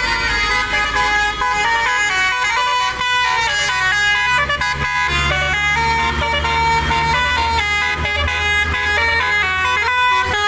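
Indonesian 'telolet' bus horn, a set of tuned electric air horns, playing a fast stepping melody of held and short notes, with the bus engine running steadily underneath.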